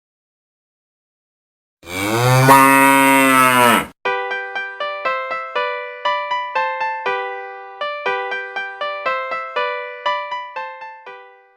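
A cow moos once for about two seconds, after a short silence. Then a keyboard plays a simple melody of single plucked-sounding notes, about two notes a second.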